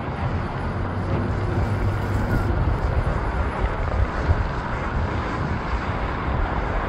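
Twin-engine jet flying overhead on approach to land: a steady, even jet roar, mixed with wind buffeting the microphone.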